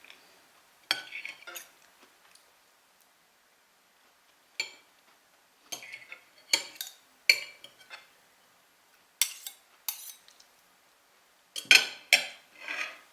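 Knife and fork clinking and scraping on a plate in scattered strokes, with a quick run of louder clinks near the end.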